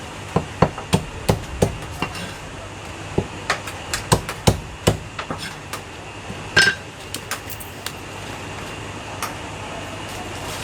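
Cleaver chopping roast meat on a chopping block: a quick, uneven run of sharp chops through the first half, then a few scattered strikes, the loudest about six and a half seconds in.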